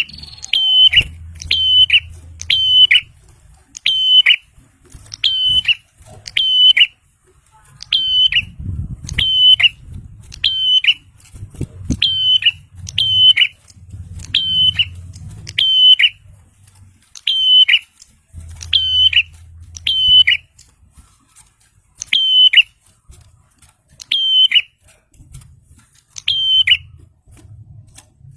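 Prinia (prenjak) calling vigorously: a loud, sharp high note, each ending in a quick downward flick, repeated about once a second with short pauses, the kind of call used as a lure for trapping. A faint low hum comes and goes underneath.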